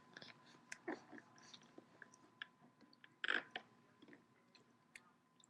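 A baby's mouth noises while being spoon-fed rice cereal: faint wet smacks and clicks of lips and tongue, with one louder smack about three seconds in.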